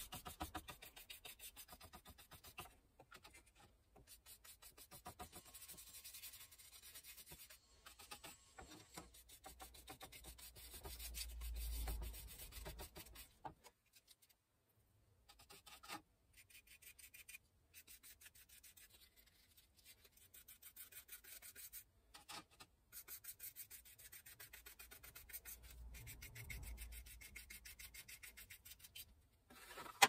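Faint, fast, repeated rubbing strokes on a small laser-cut wooden box as a finish is worked onto it by hand.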